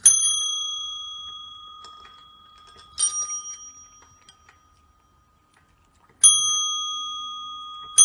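A small metal bell struck three times, about three seconds apart, each ring dying away slowly.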